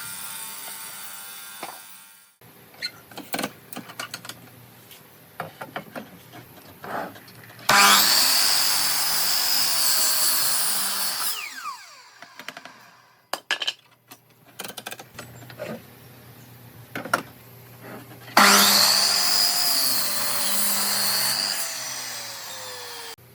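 A handheld power tool runs in two bursts of about four seconds each, cutting or drilling into wood. Its tone sags slightly under load, and it winds down with a falling pitch after the first burst. Scattered clicks and knocks of tools and wood being handled come between the bursts.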